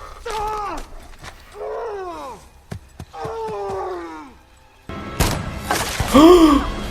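Movie soundtrack: a few short cries falling in pitch, then a sudden loud gunshot about five seconds in that rings out, followed by another cry.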